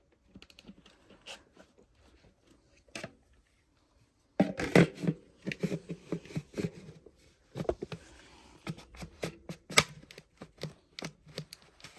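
Hands working the plastic parts of a Hoover WindTunnel Air upright vacuum: irregular clicks, knocks and scrapes, faint and sparse for the first four seconds, then louder and busier.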